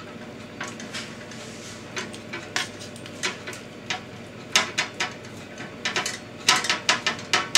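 Metal knife and tongs clicking and scraping against a metal roasting tin as the skin is peeled off a roast pork shoulder: scattered sharp taps, coming thicker near the end.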